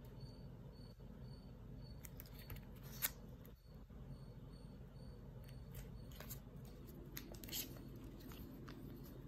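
Banknotes in clear plastic sleeves rustling and crinkling as they are handled. There is a sharp click about three seconds in and more crinkling near the end, over a faint steady hum.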